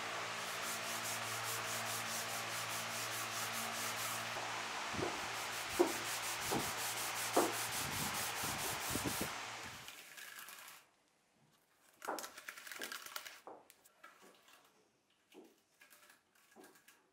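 A sanding pad rubbing over the willow of a cricket bat's edge in quick, rhythmic strokes, over a steady hum, with a few light knocks. About ten seconds in the sanding and hum stop, leaving only scattered soft rubs and clicks.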